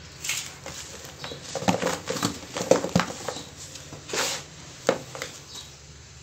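Fingers digging into and pressing dry, gritty sand and cement powder, making irregular crunches and scratchy crackles, with one longer swish of grains about four seconds in.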